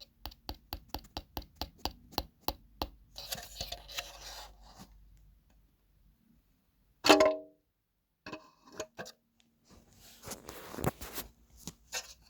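Small parts being handled during the teardown of a speaker: a quick run of about a dozen sharp clicks, then rustling and light clattering. A short, loud pitched squeak about seven seconds in, then more clicks and rustling.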